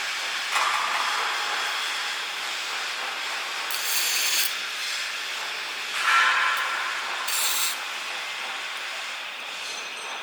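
Steady metal-workshop din, with two short hissing bursts and a couple of louder surges in between.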